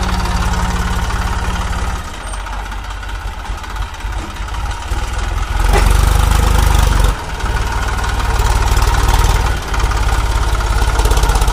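HMT 3522 tractor's diesel engine running under load, pulling a loaded trolley. It runs hard, eases off about two seconds in, then surges back up about five and a half seconds in, with two brief dips after that.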